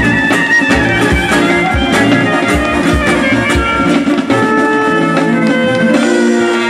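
Live traditional Macedonian folk dance music from a brass band with clarinet and drum. A steady drum beat drops out about four seconds in, leaving held wind notes.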